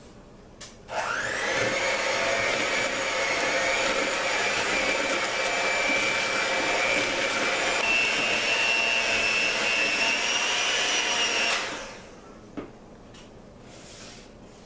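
Electric hand mixer beating cake batter in a bowl: the motor starts about a second in with a quick rising whine, runs steadily, steps up a little in pitch partway through, then stops near the end.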